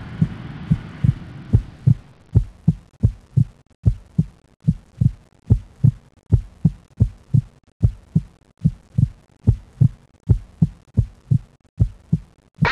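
Sound-effect track of low, evenly spaced thumps, about three a second, over a hum that fades out in the first two seconds. The thumping cuts off just before the end.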